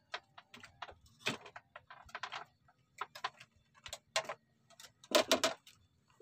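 Irregular sharp clicks and taps from hands handling fishing gear on a bamboo platform, with a quick cluster of louder clicks about five seconds in.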